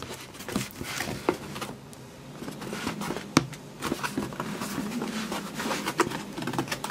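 Hands rubbing, scraping and tapping on a cardboard shipping box while working at its lid, with one sharper tap about halfway through.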